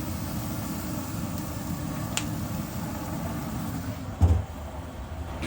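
Steady low rumble of background noise, with a brief light click about two seconds in and a dull thump a little after four seconds.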